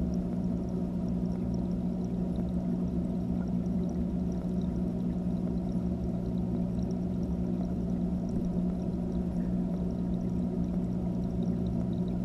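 Steady low hum and water rush of an aquarium filter, heard underwater through the GoPro's waterproof housing, with faint scattered ticks above it.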